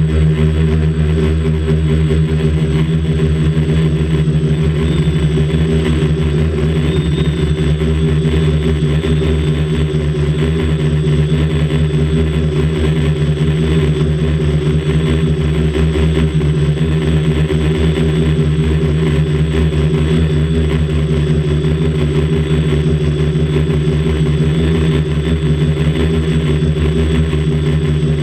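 Quadcopter's electric motors and propellers running steadily in flight, heard up close from a camera on the airframe: a loud, even buzz that holds one pitch throughout.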